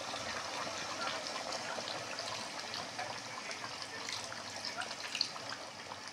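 Water poured in a steady stream from a plastic bottle into a curry in a metal kadhai, splashing into the gravy as the curry is topped up with water.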